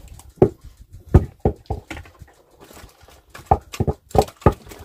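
Irregular sharp knocks and thumps, about ten in all, coming in clusters: around half a second in, from about one to two seconds in, and again from about three and a half to four and a half seconds in.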